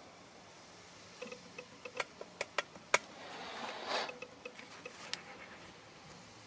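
A dozen or so sharp clicks and light metallic clinks, some with a short ring, between about one and five seconds in, with a brief scraping rush near four seconds, over a quiet background.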